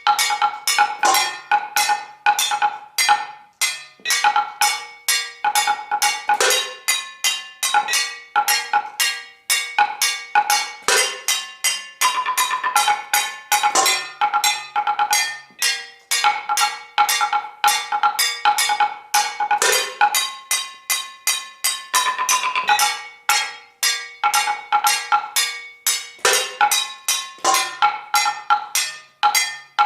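Percussionist striking found metal objects in a fast, unbroken rhythm, several strikes a second. Some pieces ring on with clear pitches while others give short dry clinks.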